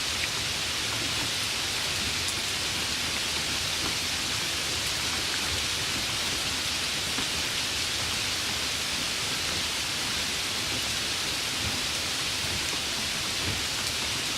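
Steady light rain: an even hiss of falling rain with faint scattered drop ticks.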